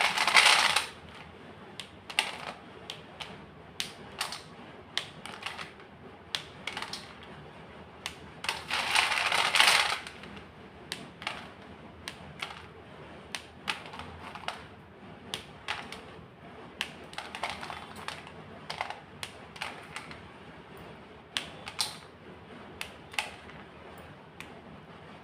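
White chalk being crushed: a longer crumbling crunch at the start and another, the loudest, about nine seconds in, between many short crisp snaps of pieces breaking.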